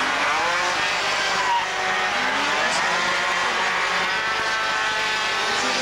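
Several 50 cc two-stroke racing scooters buzzing together as they pass. Each engine's pitch rises and falls as the riders come off and back on the throttle through the corners.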